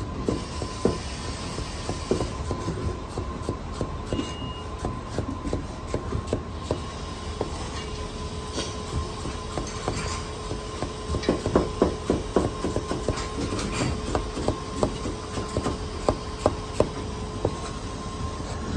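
Chinese cleaver slicing bitter gourd on a plastic cutting board: a run of quick, irregular knife taps, thickest about two-thirds of the way in, over a steady low hum.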